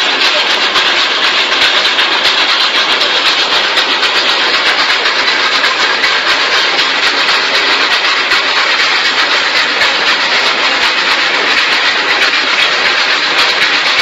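Trough-type compost turner running with a steady noise as it advances along the trough, its rotating drum churning the compost.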